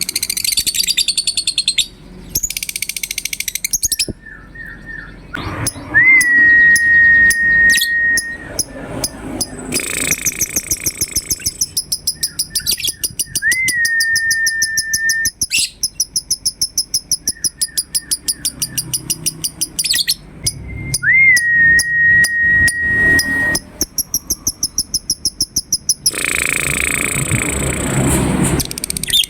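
Lovebird ngekek: long runs of rapid, shrill, evenly repeated chirps broken by short pauses. Three times a whistled note slides up and holds level for a second or two.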